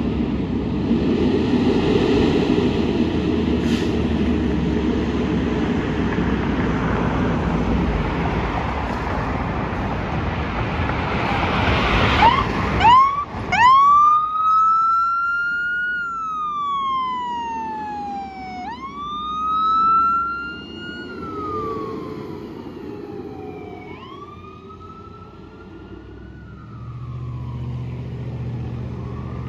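Fire engine on an emergency response: loud engine and road noise as the truck approaches and turns past. About thirteen seconds in, its siren starts wailing, rising and falling in slow cycles of a few seconds each and growing fainter as the truck drives away.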